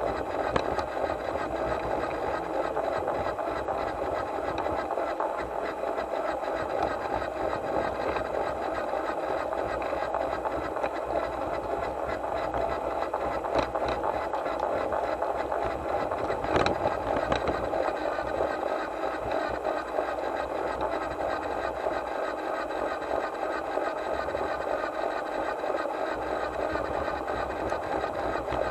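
Garden-scale model locomotive running along its track: a steady whir of its small motor and gears, with a couple of sharp clicks past the middle as the wheels cross rail joints or points.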